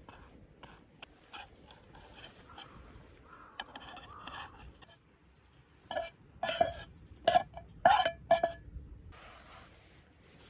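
Metal cookware and utensils clinking during a campfire meal: light clicks and handling noise, then a quick run of about six sharp, ringing clinks between six and eight and a half seconds in.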